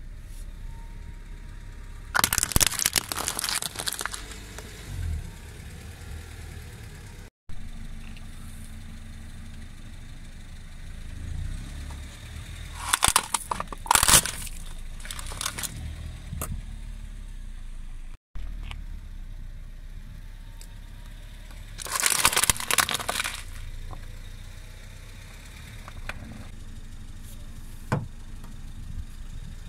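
A car tyre rolling over plastic toys and crushing them: three bursts of loud cracking and crunching, with the car's engine running low and steady in between.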